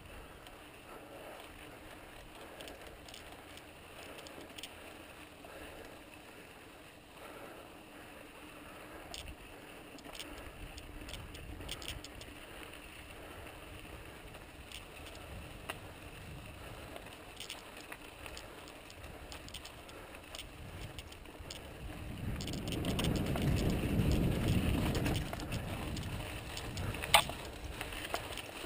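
Santa Cruz Tallboy LT mountain bike rolling on a dry dirt trail: tyres on dirt with scattered small clicks and rattles. A louder low rush swells for about three seconds near the end, and a single sharp click comes just after it.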